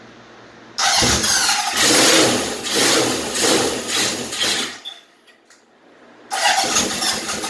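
1977 Honda CB750's air-cooled inline-four being cranked on its electric starter for a cold start after ten years of sitting. The first attempt lasts about four seconds and stops without the engine staying running. A second attempt begins about a second and a half later.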